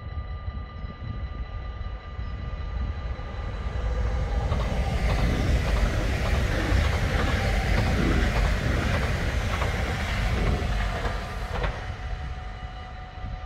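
NS electric passenger train passing on the adjacent track. It gets louder from about four seconds in, is loudest around the middle, and fades after about eleven seconds, with the clickety-clack of its wheels over the rail joints.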